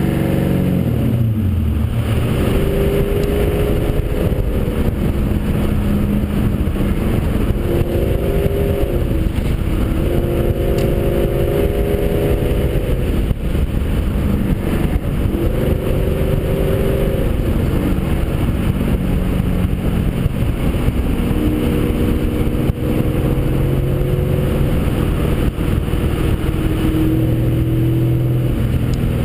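Nissan 240SX driving at road speed, heard from a camera mounted on the outside of the car body: the engine's note drops in pitch in the first second or two as the car slows, then runs steady, with tyre and wind noise throughout.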